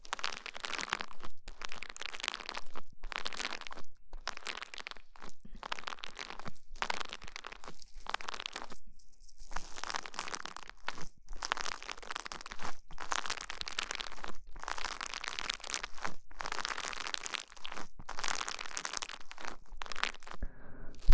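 Close-miked ASMR crinkling and crunching, in quick irregular strokes with short pauses between.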